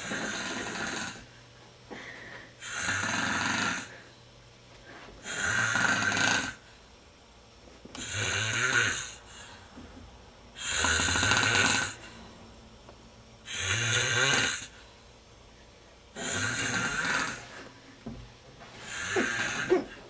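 A sleeping man snoring loudly and rhythmically, one harsh snore about every two and a half to three seconds, each lasting about a second, with quieter breathing in between.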